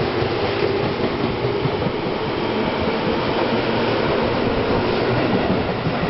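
Tobu 10030 series electric commuter train pulling out of the station, its cars rolling past close by with a steady rumble of wheels on rail and running gear.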